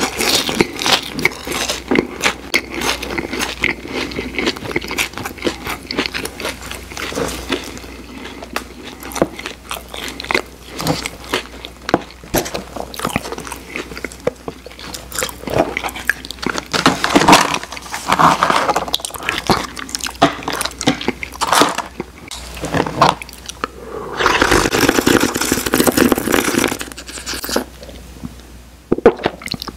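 Close-miked wet chewing and lip-smacking of a mouthful of French fries, with many small clicks. Near the end comes a few seconds of louder, steadier slurping from a McFlurry cup.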